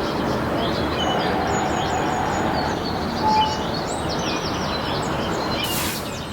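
Many small birds chirping and twittering over a steady background of outdoor noise.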